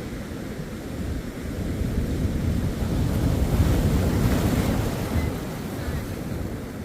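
Ocean surf: a wave rolls in, the rush of water building about two seconds in, peaking around four seconds and then easing back, over a steady low rumble of sea and wind.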